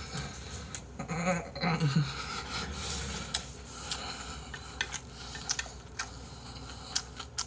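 Close-up mouth sounds of eating Jjapaghetti black-bean instant noodles: slurping and chewing, with a few sharp clicks scattered through.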